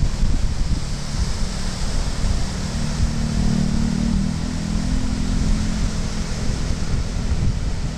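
Surf breaking and washing up a sandy beach, with wind buffeting the microphone in a heavy rumble. A low hum rises in the middle and fades again.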